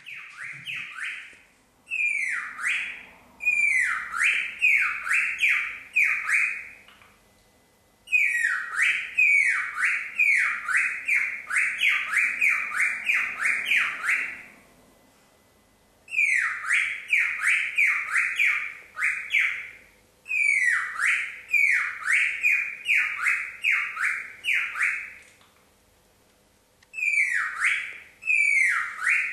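Pet cockatiel repeating a falling whistled note, about two a second, in bouts of several seconds with short pauses between, like a mimicked sound effect.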